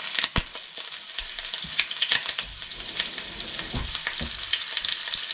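A block of frozen minced pork sizzling in a little oil in a nonstick frying pan: a steady high hiss dotted with crackles and pops, one sharp pop about half a second in.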